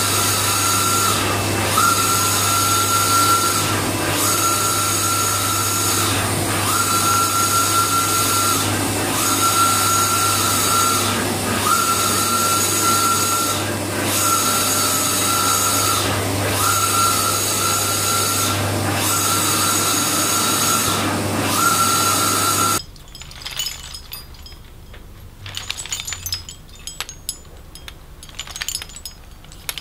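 Large-format inkjet printer printing: a steady hum with the print-head carriage motor's whine repeating on each pass, about every two and a half seconds. It cuts off suddenly a little before the end, leaving only faint scattered clicks.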